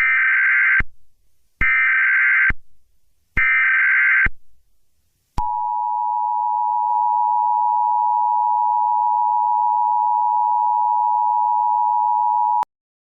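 Emergency Alert System SAME header: three screechy digital data bursts of about a second each, with short gaps between them. Then the EAS two-tone attention signal holds steady for about seven seconds and cuts off abruptly.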